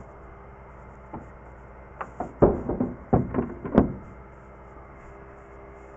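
A quick series of about eight knocks and thumps as a gloved hand handles the sheet-metal casing of a turbine start cart, over a low steady hum.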